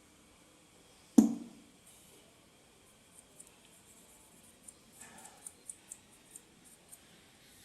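Laptop parts being handled during disassembly: one sharp knock about a second in, then a run of small light clicks.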